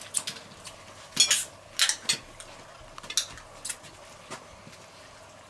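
Knife and fork clinking and scraping on a plate while cutting a bacon-wrapped spring roll: about half a dozen short, irregular sharp clicks.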